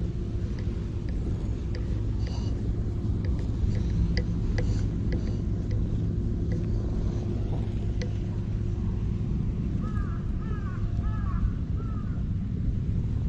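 Steady low rumble with a faint hum, with scattered light clicks in the first part. Then, about ten seconds in, a quick series of short birdcalls that rise and fall.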